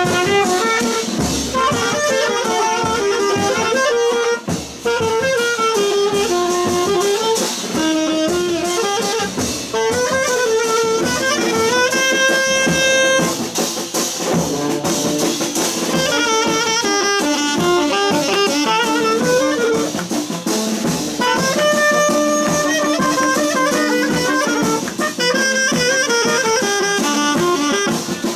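Saxophone playing a fast, ornamented dance tune over drums, with quick melodic runs and a long held note about halfway through.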